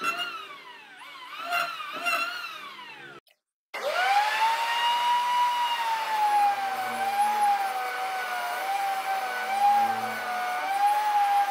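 Background music for about three seconds, then a brief gap. A table saw then starts up: its motor whine rises quickly to a steady high pitch and wavers slightly as the blade cuts a curved wood-and-epoxy strip.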